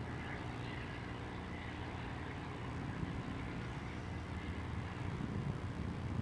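Conrail diesel locomotives working hard under load as they haul an intermodal train up the grade, a steady low engine rumble that grows a little louder near the end as the train approaches.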